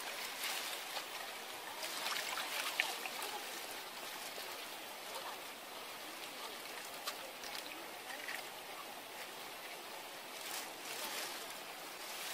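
Shallow water trickling and splashing as a gloved hand works in a puddle on a mudflat, with scattered small wet clicks and splashes, busiest about two seconds in and again near the end.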